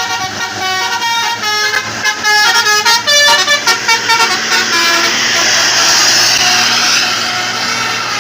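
A bus's Basuri telolet horn, loud, playing a quick melody of stepped notes with several tones sounding together for about five seconds. A broad rushing noise follows for about two seconds.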